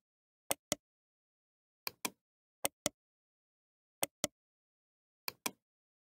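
Computer mouse button clicking: five quick pairs of sharp clicks, each pair a fifth of a second apart, spaced about a second or so from the next, with silence between.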